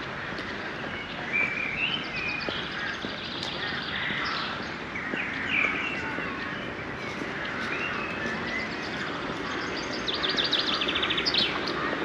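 Small songbirds chirping and calling over a steady background hum, with a rapid trill near the end.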